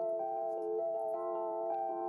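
Background music: steady held notes in chords that change every second or so.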